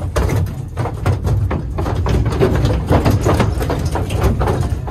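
Heifers' hooves clattering and knocking irregularly on the floor and ramp of a livestock trailer as the cattle walk off it.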